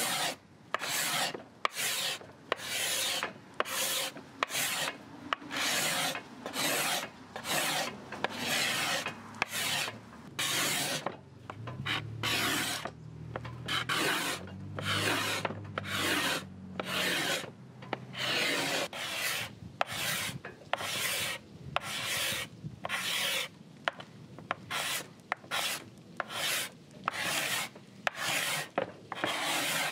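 Steel card scraper drawn in repeated strokes across a teak veneer tabletop, a little under two strokes a second, each a short dry rasp. It is shaving off the last of the old finish left after chemical stripping.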